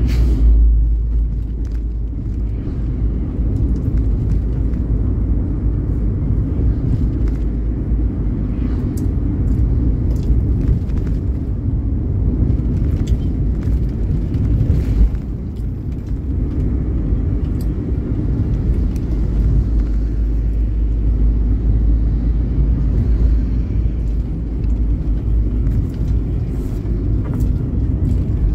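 A vehicle driving along a road: a steady low rumble of engine and road noise that dips briefly about halfway through.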